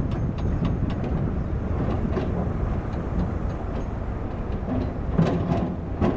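Heavy diesel construction machinery running with a steady low rumble, with scattered metallic knocks and clanks and a louder burst of them about five seconds in.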